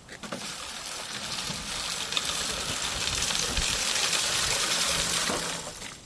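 Granular ice melt being poured out and spread over ice: a hiss of pattering grains that builds for about five seconds, then stops.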